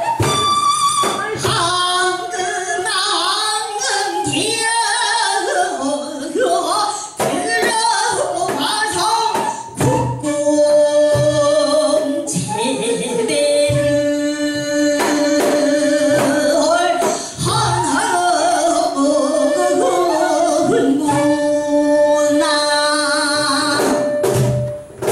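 Female pansori singer singing a fusion pansori passage, her voice bending and holding long notes, over a small Korean traditional fusion band with gayageum and drum kit.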